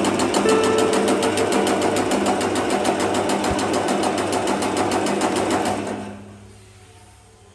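Meatball forming machine running: a steady motor hum under a fast, even clatter from the forming mechanism. It dies away about six seconds in.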